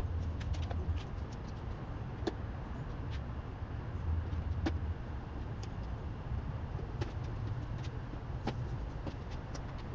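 Scattered faint clicks and taps of hand tools and fasteners on motorcycle parts, over a steady low background rumble.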